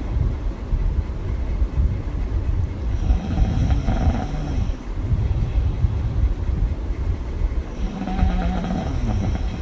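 A woman snoring with her mouth open: two long snores about five seconds apart, with a steady low rumble of breath noise between them.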